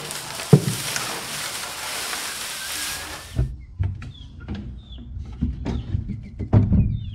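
Dry hay bedding rustling as a chick brooder is cleaned out, a steady hiss with a knock about half a second in, which cuts off abruptly after about three and a half seconds. Then come scattered knocks and thumps, with Silkie chicks peeping in short falling chirps.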